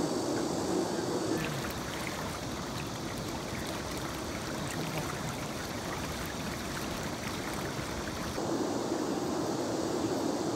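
Rushing water of a shallow river riffle. About a second and a half in it cuts to a closer, splashier rush with small trickling ticks, and about eight and a half seconds in it cuts back to a steadier, duller rush.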